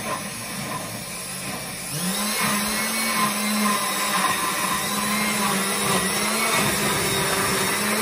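Countertop glass-jar blender running, churning chunks of fruit into a thick purée. It gets louder about two seconds in, and its motor hum dips in pitch now and then as the thick mixture loads the blades.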